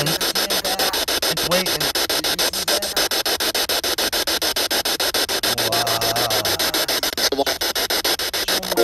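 Spirit box (ghost box) sweeping through radio stations: steady static chopped about eight times a second, with brief wavering snatches of voice-like sound that the uploader flags as EVP.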